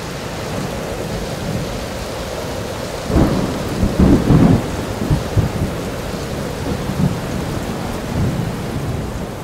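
Stormy night: a steady rain hiss with low rumbles of thunder or wind, the loudest rumbles about three to four and a half seconds in.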